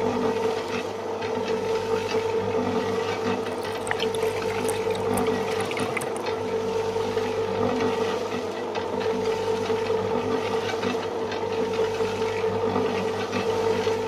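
Small electric motor of a miniature model concrete mixer running at a steady speed, turning the drum through its gear drive with a constant hum and whine while wet cement mix churns inside.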